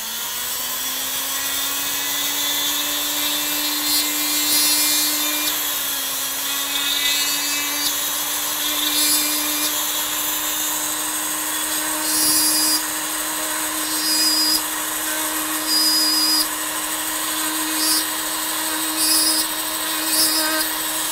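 Handheld rotary tool with a small ball cutter spinning up and running with a steady high whine, biting into a wooden rifle stock to cut small divots for epoxy bedding to key into. Short rougher grinding bursts come and go as the cutter presses into the wood, with a brief dip in pitch under load about six seconds in.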